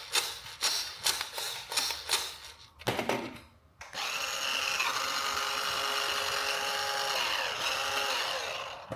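Plastic clicks and knocks from a toy being handled. About four seconds in, a toy RC car's small electric motor and gears start up and whir steadily, then wind down just before the end.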